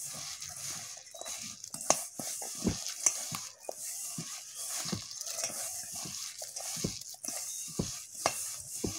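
A hand mixing and kneading grated coconut with crushed petha in a steel bowl: an irregular soft rustle and squish, with scattered light clicks as fingers knock against the bowl.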